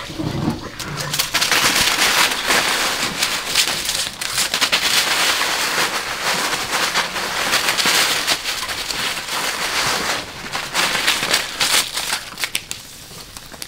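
Dry banana leaves crackling and rustling as a puppy roots about in a pile of them. The crackling is dense and steady and dies down near the end.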